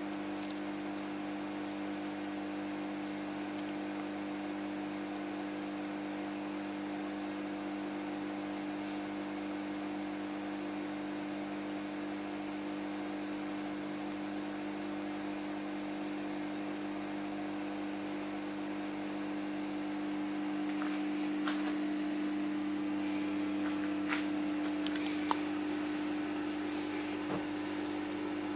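Reef aquarium equipment running: a steady electrical hum over an even hiss of moving water, with a few light clicks near the end.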